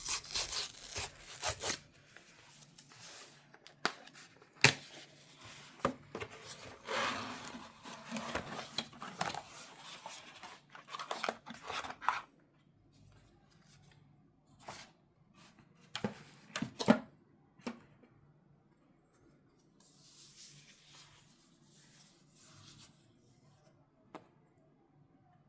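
Paper and cardboard packaging being torn open and handled: rustling, tearing and scraping with sharp taps and clicks. It is busiest for the first twelve seconds, gives a couple of loud clicks a few seconds later, then goes much quieter.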